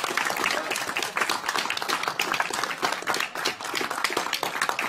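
Many people applauding in a room: dense, continuous clapping.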